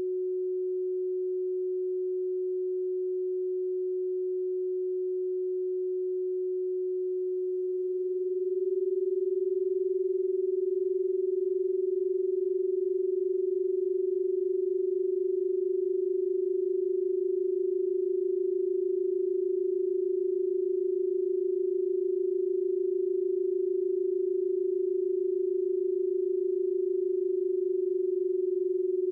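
Electronic sine tones held at a steady pitch. A single pure tone is joined about eight seconds in by a second tone very close to it in pitch, so the sound wavers in a slow, even beating.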